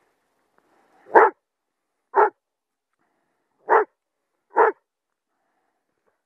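Estonian hound barking four short single barks, roughly a second apart, with a longer pause between the second and third.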